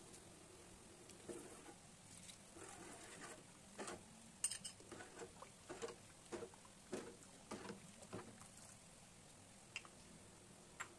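Faint clinks and scrapes of a spoon stirring starch slurry into a pot of hot sugar water, a string of light taps on the metal pot from about four to eight seconds in.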